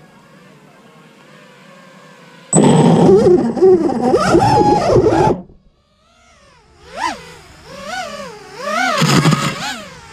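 FPV quadcopter's electric motors and propellers whirring while the drone is stuck in a bush after a crash. About two and a half seconds in, a loud whine starts suddenly and runs for about three seconds before cutting off. It is followed by several short revs that rise and fall in pitch.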